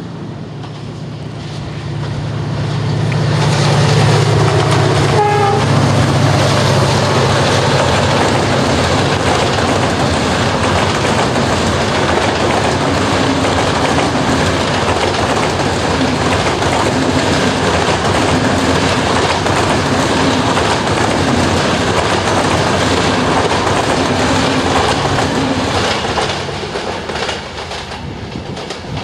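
Electric locomotive hauling passenger coaches passing close by. Its low hum as it approaches gives way to a loud, steady rumble and clatter of coach wheels over the rails, which eases off near the end as the last coach goes away.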